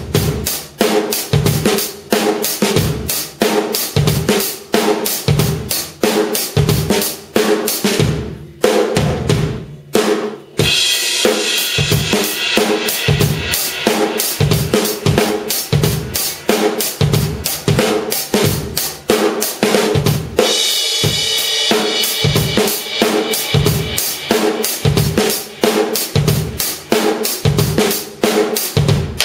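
Drum kit played in a steady groove on a C&C Custom Drums kit with TRX cymbals, kick and snare hits throughout. After a brief break about a third of the way in, the cymbals ride in a continuous wash over the beat, with one short gap about two-thirds through.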